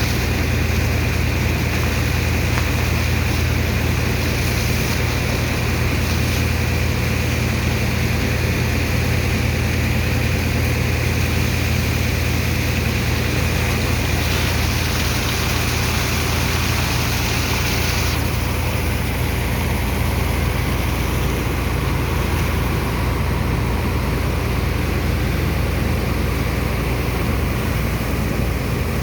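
Heavy engine of a sand-unloading dredger and its pump running steadily with a constant low drone, over a rushing hiss that eases off about two-thirds of the way through.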